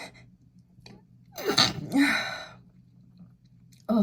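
A woman sneezes once, loudly, with a quick in-breath before it, about one and a half to two seconds in. The sneeze is set off by sniffing lavender bath essence.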